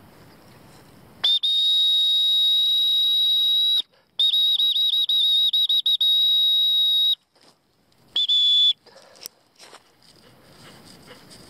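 Dog training whistle blown to recall a wirehaired vizsla: a long steady high blast, then a second blast broken in the middle by a quick run of pips, then a short final blast.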